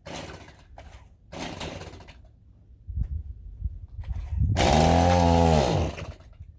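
Power saw cutting the end off a Christmas tree trunk: two short scraping bursts, then about four and a half seconds in the motor runs loud for a second and a half, its pitch rising and then falling as it spins up and winds down.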